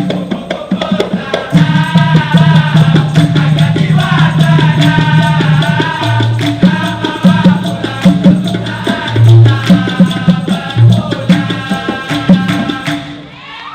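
Dikir barat performance: a male chorus singing together over fast, even hand percussion with shaker rattles. The music dips briefly near the end.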